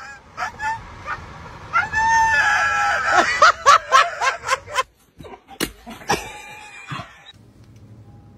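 A dog leaning out of a moving car's window lets out a long, steady, high-pitched yell of about a second and a half, starting about two seconds in. It is followed by a string of short, sharp sounds over a low road rumble.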